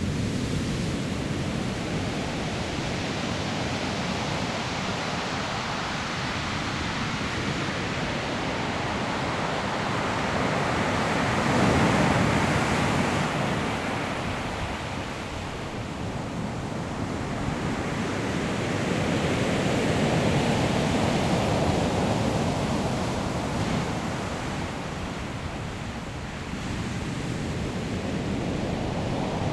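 Ocean surf breaking on a pebble shore: a steady wash of noise that swells as a wave breaks about twelve seconds in, and again around twenty seconds, easing off between waves.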